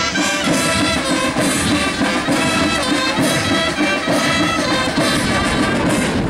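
Brass band music playing loudly, setting in abruptly just before and running on steadily.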